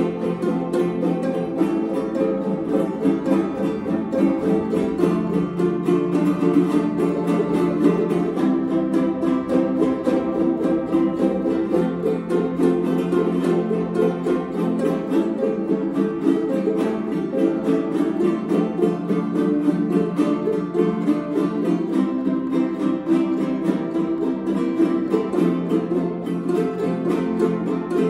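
Several jaranas strummed together in a steady, fast son jarocho rhythm.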